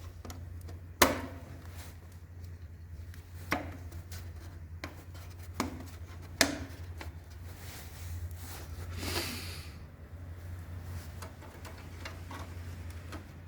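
A few sharp knocks and clicks of hard parts being handled, the loudest about a second in, and a short scraping rub a little past the middle, over a steady low hum.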